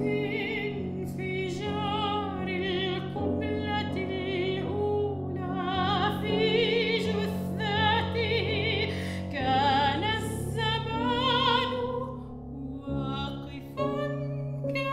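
Classical soprano singing long, wide-vibrato phrases over grand piano accompaniment, with held chords and a lighter run of piano notes near the end.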